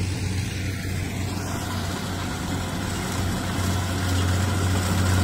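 Kubota DC70 rice combine harvester's diesel engine running steadily with a deep hum, growing louder over the last couple of seconds as the machine comes closer.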